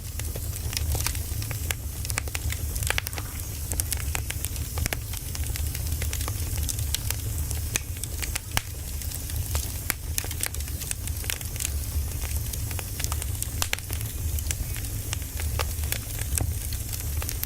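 Firewood burning in a steady fire: irregular crackles and small pops over a low rumble.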